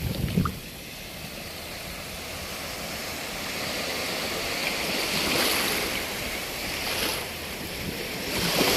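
Sea surf washing in: small waves make an even rush that rises and falls, swelling a little around the middle and again near the end.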